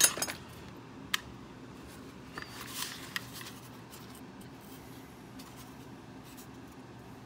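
Handling of an antique rim lock while its newly repaired privacy slide is tried: a sharp click at the start, a lighter click about a second in, then a short scrape with another click around three seconds in.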